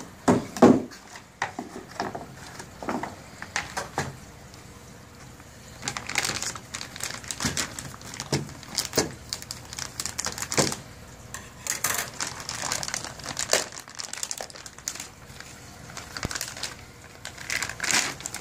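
Black plastic protective bag crinkling and rustling in fits and starts as it is cut open with scissors and pulled off a new copier drum unit. Knocks and scrapes of cardboard packing being handled near the start.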